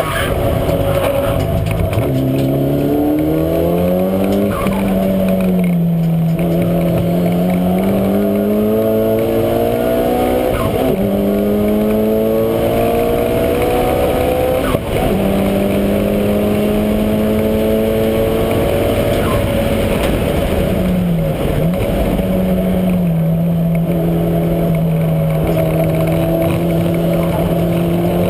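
Mitsubishi Lancer Evolution V's turbocharged four-cylinder engine driven hard, the revs climbing in repeated pulls broken by gear changes, then holding a steady high pitch. About 21 s in the revs dip briefly and climb again.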